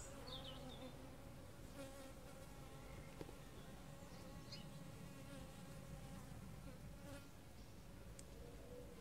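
Honeybees buzzing around an opened hive: a faint, steady hum.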